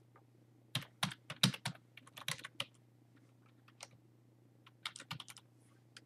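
Computer keyboard typing: a quick run of keystrokes in the first few seconds, a single key a little later, then another short run about five seconds in.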